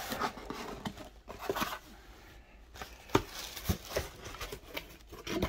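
A cardboard box's flaps being folded back and plastic air-pillow packing crinkling and rustling under a hand, in irregular crackles and taps.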